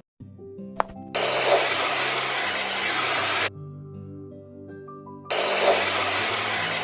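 A loud hissing sound effect, twice, each a little over two seconds long and cutting in and out abruptly, over light background music.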